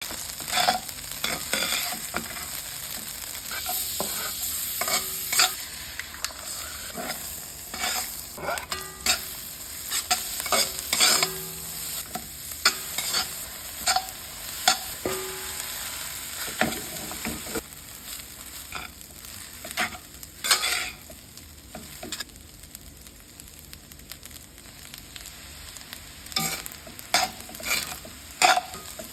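Fried rice sizzling in a hot pan while a spatula stirs and tosses it, scraping and clinking against the pan at irregular moments. The sizzle is steadier in the first half and dies down for a few seconds past the middle before the scraping picks up again.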